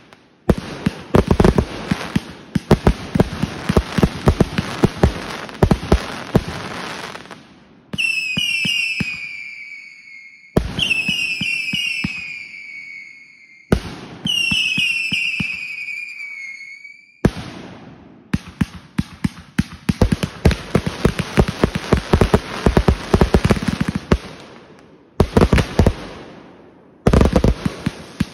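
Consumer fireworks going off: several seconds of dense, rapid crackling and popping, then three rounds of shrill whistles that fall in pitch, each about three seconds long. After the whistles, the fast crackling and popping starts again in bursts.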